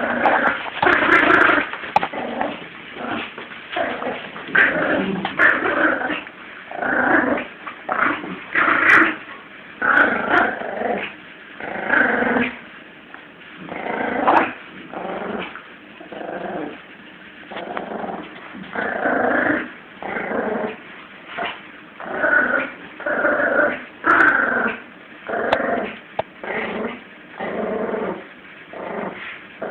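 A 17-week-old Yorkshire Terrier puppy growling in play during a tug of war, in repeated short bursts about once a second.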